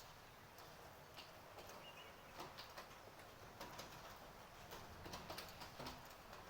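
Faint light rain in a built-up area: a soft steady hiss with scattered drips ticking irregularly.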